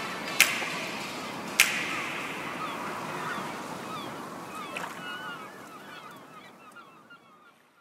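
Steady rush of a waterfall with birds calling over it, and two sharp clicks in the first two seconds; the whole fades out to near silence by the end.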